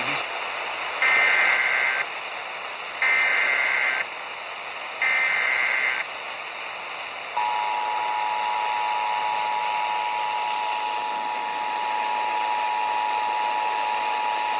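Emergency Alert System activation: three one-second digital SAME header data bursts, each a second apart. About seven seconds in, the steady two-tone EAS attention signal (853 and 960 Hz) begins, announcing a severe thunderstorm warning. A constant hiss sits under it all.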